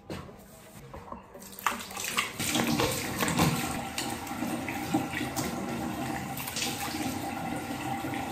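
Bathroom tap running, switched on about a second and a half in, with water splashed over the face, hair and arms in wudu, the ablution before prayer.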